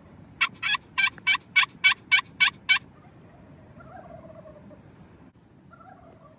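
A run of about nine loud turkey yelps, three or four a second, lasting about two and a half seconds.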